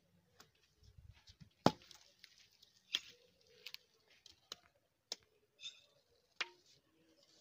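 Scattered sharp clicks and knocks, roughly one every second, the loudest about one and a half seconds in, with a few faint high chirps between them.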